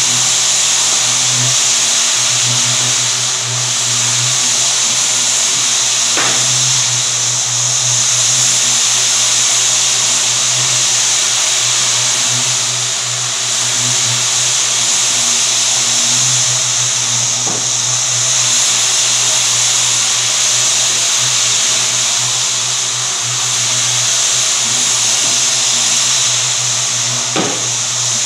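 Rotary floor buffer running steadily while buffing bare sanded hardwood flooring: a steady low hum under a broad hiss from the pad on the wood.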